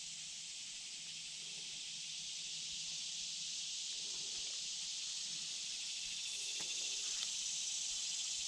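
Steady high-pitched insect chorus with no distinct pulses, growing slightly louder, with a couple of faint taps near the end.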